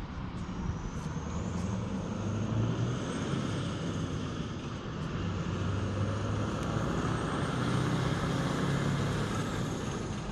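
Scania truck's diesel engine running as the truck, pulling a livestock trailer, drives past; a steady low hum that grows gradually louder, peaking near the end.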